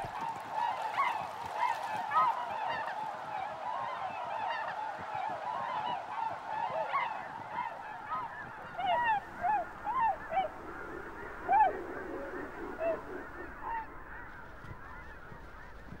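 A flock of trumpeter swans calling: many overlapping short calls, each rising and falling in pitch. A cluster of louder calls comes in the middle, and the calls thin out toward the end.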